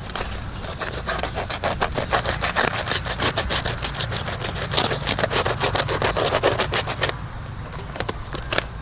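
Long kitchen knife sawing through a crumpled aluminium-foil parcel in rapid back-and-forth strokes, the blade rasping and crinkling the foil; the strokes stop about seven seconds in.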